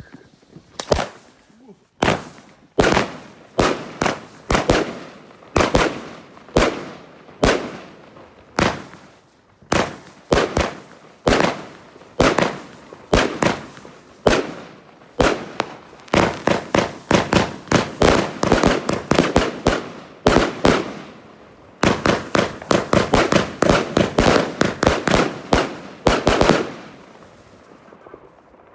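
A 36-shot 25 mm fireworks cake, Funke's Blitzgewitter, firing a run of sharp reports about one to two a second, each trailing off briefly. A fast volley near the end closes the sequence, and then the firing stops.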